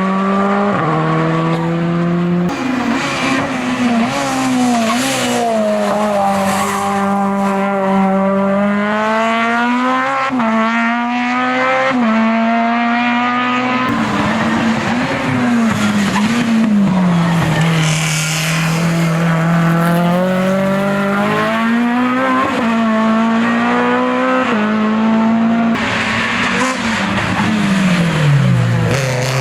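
Hill-climb race car engine running hard, its pitch climbing under acceleration and stepping down sharply at each gearshift, several times over; in the middle it falls away and holds lower before picking up again, and near the end it drops.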